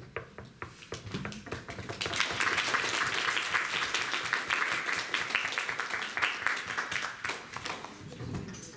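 Audience applauding: a few scattered claps at first, building into steady applause about two seconds in, then thinning out near the end.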